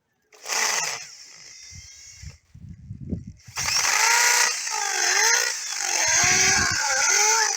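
An electric power tool starts up with a loud hiss, falls quieter, and a few low knocks follow. About three and a half seconds in it runs loud and steady, its pitch dipping and recovering about once a second as it is worked under load.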